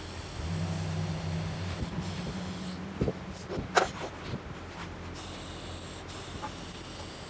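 TIG welding on thin stainless steel sheet: a steady arc hiss with a low hum for the first couple of seconds, then a few sharp clicks and taps as the hiss stops and starts.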